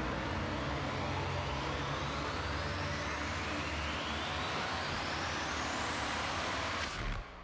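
Large hall audience applauding steadily, a dense wash of clapping. A whooshing sound climbs steadily in pitch beneath it, and both cut off abruptly near the end.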